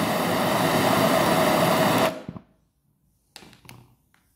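Hotery HZ-8389 MAP brazing torch burning LPG, its blue flame hissing steadily, then cut off abruptly about two seconds in. A couple of faint taps follow as the brazing rod is dipped into the flux jar.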